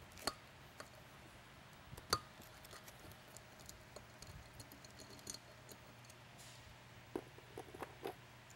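Faint scattered clicks and ticks of a Phillips screwdriver loosening the screws that hold a siren driver to its cast mount bracket. A sharper click comes about two seconds in, and a cluster of small knocks near the end.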